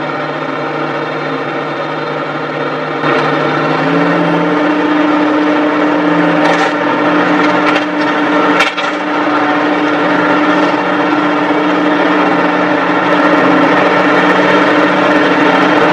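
Diesel engines of Ponsse forestry machines running. The engine note steps up in level about three seconds in and settles to a stronger steady pitch from about four seconds. A few sharp knocks come between about six and nine seconds in.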